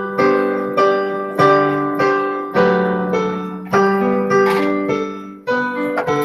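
Piano accompaniment playing a slow tune with chords at a steady pace. A new note or chord is struck a little under twice a second, and each one fades away.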